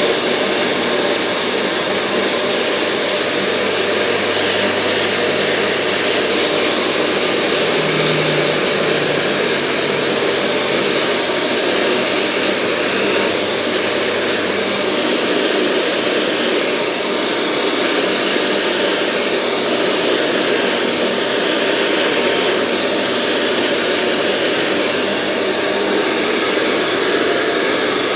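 Hair dryer running steadily, a continuous rush of blown air.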